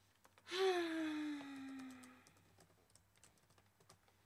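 A woman's voice making one long wordless sound that falls slowly in pitch, followed by light scattered clicks of typing on a computer keyboard.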